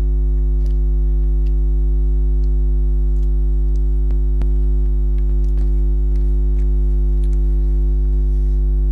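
Loud, steady low electrical hum with a stack of overtones, a recording fault that buries the rest of the sound. Faint, scattered clicks come through underneath.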